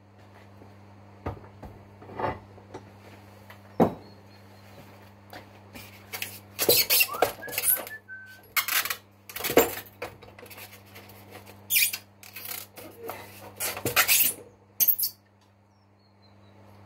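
Metal tools and parts being handled on a workbench: irregular clinks, knocks and clatters, with a brief squeak about seven seconds in, over a steady low hum.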